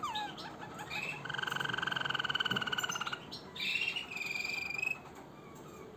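Harz Roller canary singing: a few quick falling notes, then a long rapid rolling trill from about a second in, and a second, higher roll a little before four seconds in.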